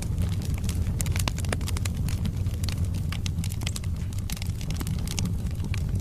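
Wood fire burning in a fireplace: a steady low rumble of the flames with frequent sharp crackles and pops from the burning logs.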